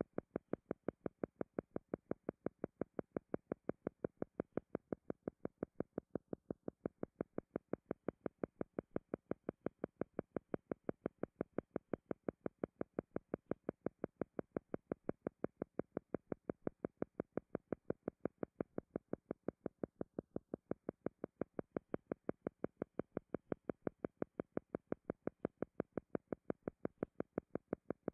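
A steady, even train of soft pulsed tones, a few a second, making the rhythmic background beat of a hypnosis recording. The voice is silent.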